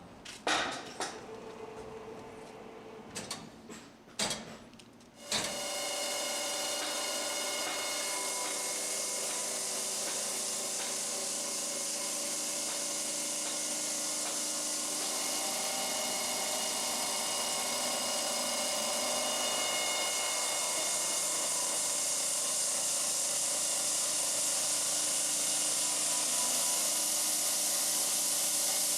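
A few sharp knocks, then about five seconds in a stone-cutting saw starts cutting a limestone slab: a steady hiss with several held tones that carries on and grows slightly louder.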